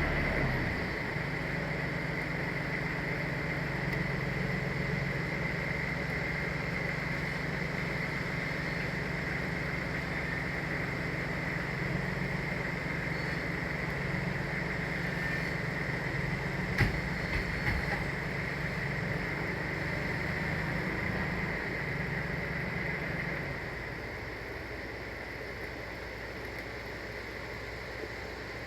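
Small engine idling steadily, with one sharp knock about two-thirds of the way through; the engine stops near the end, leaving a steady hiss.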